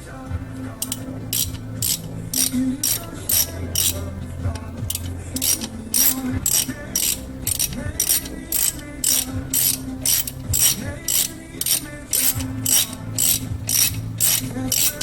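Hand ratchet wrench clicking in repeated back-and-forth strokes, about two to three clicks a second with short pauses between runs, as a bolt on the front brake assembly is run down snug.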